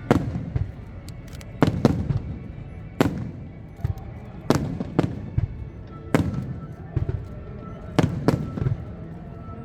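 Fireworks display: aerial shells bursting with a sharp bang about every second, some in quick pairs, each followed by a low rumbling echo.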